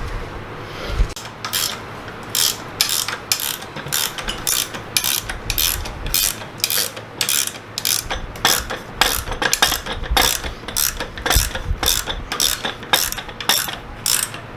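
Hand ratchet wrench tightening bolts, clicking in quick bursts on each return swing, about two to three strokes a second.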